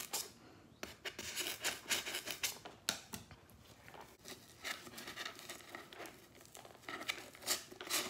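Scissor tips scraping in a hole in foam board, then nautical rope being pushed and pulled through the hole: a string of short, faint scratches and rustles.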